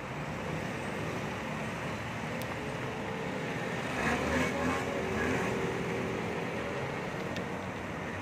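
Street traffic heard from a bicycle: a steady rush of road noise, with a vehicle passing louder about four seconds in.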